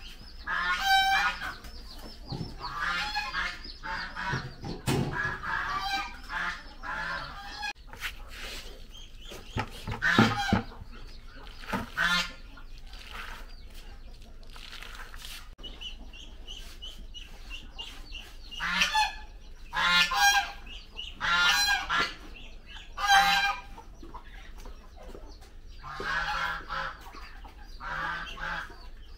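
Domestic poultry calling: bouts of loud, repeated calls a second or two apart, with a few knocks in between.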